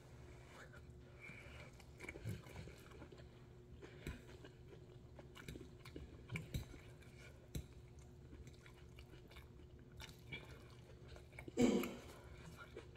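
Close chewing and mouth sounds of someone eating vegetable noodles: scattered soft smacks and clicks, with one louder short sound near the end.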